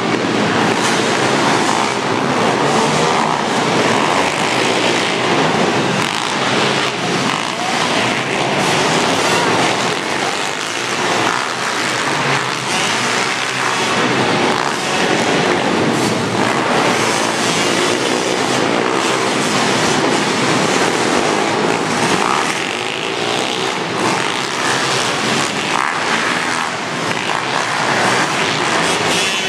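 Several pit bike engines running and revving together as the bikes race around a dirt track, a loud, steady mix of engine noise.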